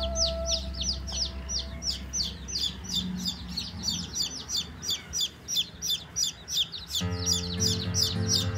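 Baby chicks peeping nonstop: a quick, even stream of short, high, falling peeps, several a second, over background music.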